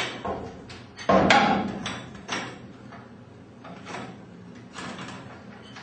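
Steel winding bars knocking and clanking in the winding cone of a garage door torsion spring as it is unwound a quarter turn at a time: one loud clank about a second in, then several lighter knocks and clicks.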